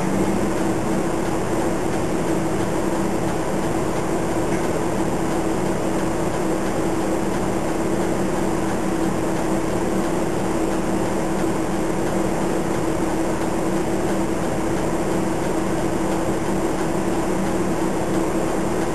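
City bus stationary with its engine idling, heard from inside the cabin: a steady hum and drone with no change in pitch.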